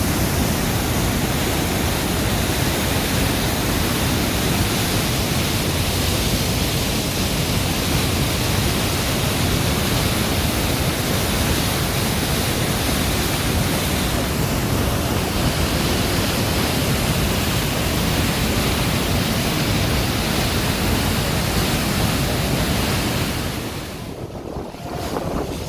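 The Rhine Falls waterfall rushing: a loud, steady roar of falling water that drops away sharply near the end.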